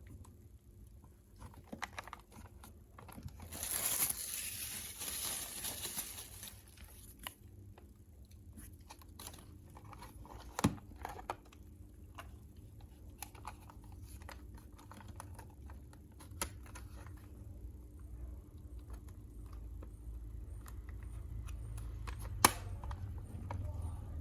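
Hands handling packaging and a small device: a crinkling, tearing rustle about four seconds in, then scattered light clicks and taps, with two sharper knocks near the middle and near the end.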